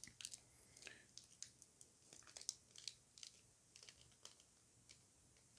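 Faint crinkling and small crackles of a foil trading-card booster pack being handled and opened, in scattered short bursts.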